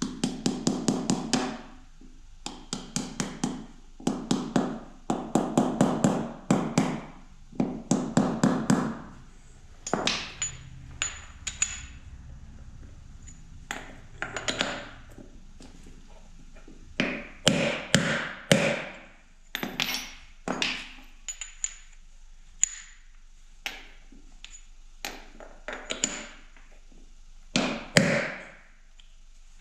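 Hammer striking to drive a new grease seal into a front wheel hub with metallic taps: fast runs of blows in several bursts over the first nine seconds, then slower, scattered single and grouped taps.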